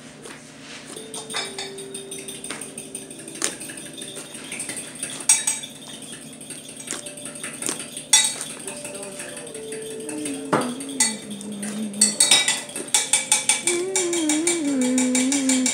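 Hand kneading and pressing a thick, sticky slime (Slime Obsidian's duck pond slime), giving wet squishing and small popping clicks as air is worked into it. The clicks come thicker and louder in the last few seconds.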